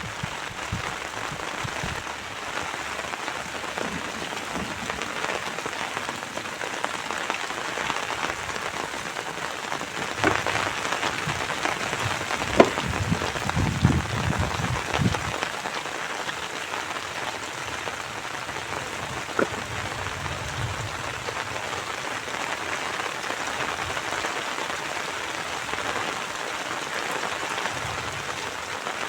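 Steady rain falling, a continuous hiss of drops, with a few sharp knocks about 12 and 19 seconds in and some dull low thumps between them.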